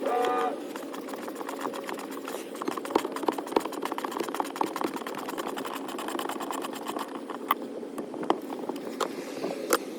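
Socket ratchet clicking in quick runs while 15 mm bolts are worked loose, with a brief squeak right at the start.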